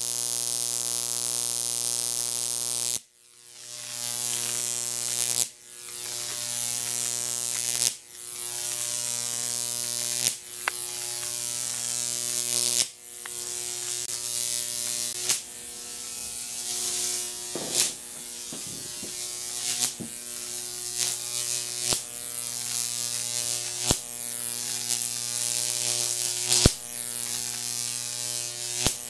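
Jacob's ladder arc, fed by a 15,000-volt neon sign transformer, buzzing and hissing over a steady electrical hum. The arc climbs the copper rod electrodes, breaks at the top and re-strikes at the bottom about every two and a half seconds, so the sound cuts out and builds up again each time. A few sharp pops come near the end, which the builder attributes to the spark's electromagnetic pulse spiking the camera's audio circuits.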